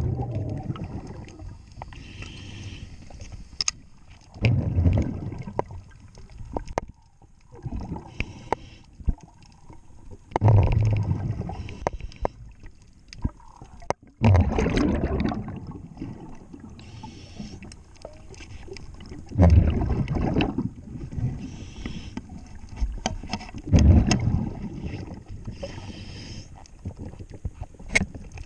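Scuba diver breathing through a regulator underwater: a faint hiss on each inhale and a loud rumble of exhaust bubbles on each exhale, about every four to five seconds, with scattered sharp clicks and taps.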